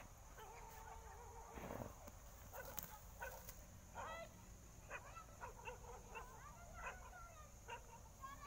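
Faint barking of several distant dogs: short barks at irregular intervals, starting about two seconds in, with a few sharp crackles.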